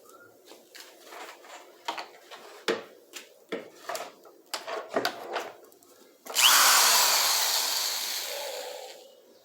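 A run of light knocks and clicks, then about six seconds in a power tool starts suddenly and loudly and fades away over about three seconds.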